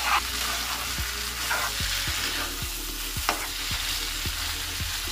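Chickpeas and potato cubes in spiced masala sizzling in a frying pan while a spatula stirs them, scraping and tapping the pan about two to three times a second. This is the dry-frying (bhuna) stage of cooking chana masala, before water is added.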